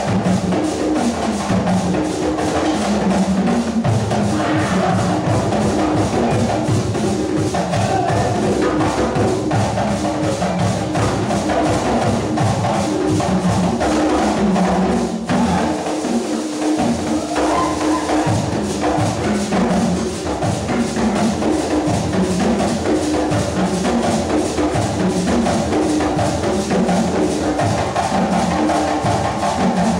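Live African drum and percussion music playing a steady, fast, unbroken rhythm for a dance, with sharp clacking and rattling strokes over the drums.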